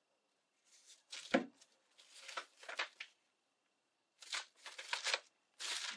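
Book-page paper rustling and crinkling in several short bursts as rolled paper petals are handled and pressed into place, with one light knock a little over a second in.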